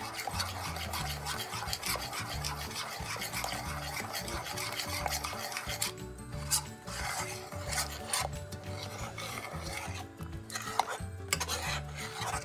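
A spoon or whisk scraping round the bottom of a pot as a thick milk-and-cheese mixture is stirred: a steady run of rasping strokes with brief lulls. The mixture has not yet set, and it is kept moving so it does not stick to the pot.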